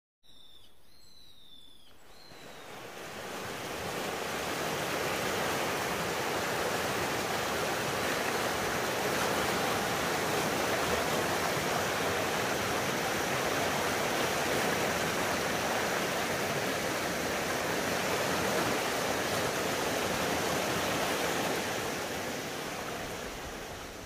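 Mountain stream rushing over rocks: a steady sound of running water that swells in about two seconds in and eases slightly near the end. Before it comes in, a bird chirps a few times.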